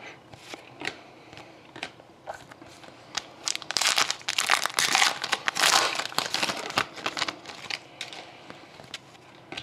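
A few light clicks of trading cards being handled, then about three seconds of crinkling as a foil hockey card pack wrapper is torn open, the loudest part.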